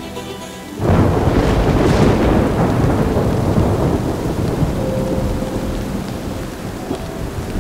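A loud thunderclap about a second in, rumbling on and slowly fading over heavy, steady rain.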